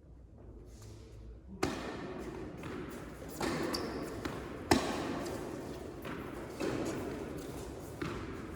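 Tennis rally: racket strikes on the ball about every one and a half seconds, alternately louder and softer, with one sharp crack near the middle the loudest, over a steady background of hall noise.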